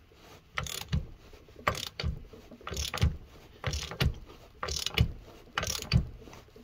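Ratchet wrench tightening a lug nut to draw a new wheel stud into the axle flange, worked in short strokes about once a second, each with a burst of ratchet clicking.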